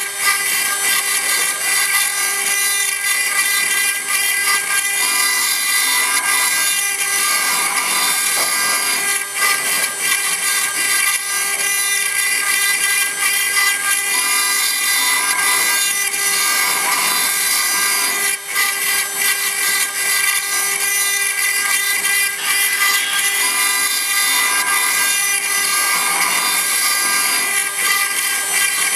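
4-axis CNC router's spindle running steadily while its cutter carves stone, a steady high whine over continuous cutting noise.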